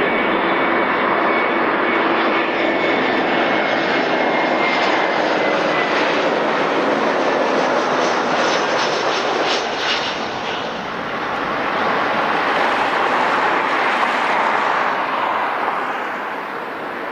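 Jet airliner's engines running loud as it passes close, a dense steady rush with a thin whine that slowly falls in pitch; the sound eases a little near the end.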